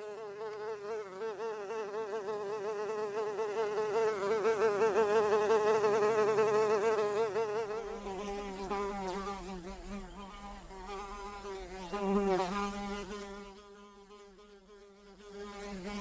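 A fly buzzing, a wavering drone that swells and fades, loudest about four to seven seconds in and again briefly near twelve seconds; a steadier low hum joins about eight seconds in.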